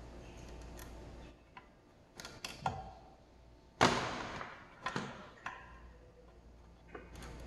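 Scattered clicks and knocks of hands working an aluminium valve cover in a metal tray as the old rubber valve cover gasket is pulled out of its groove, with one louder knock about four seconds in.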